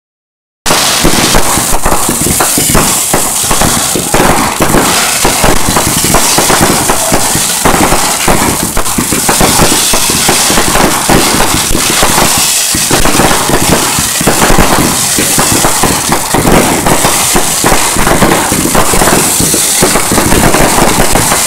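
Fireworks going off in a loud, dense, unbroken barrage of rapid bangs and pops, starting about half a second in.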